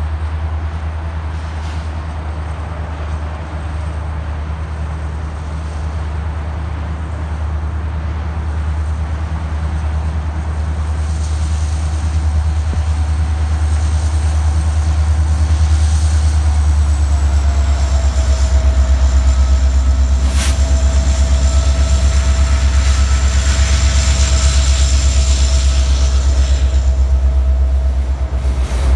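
Canadian Pacific diesel freight locomotive approaching and passing close by, its engine a deep steady drone, followed by rail-carrying flatcars of a continuous-welded-rail train rolling past. From about halfway through, a thin, steady, high-pitched wheel squeal joins in and holds until near the end.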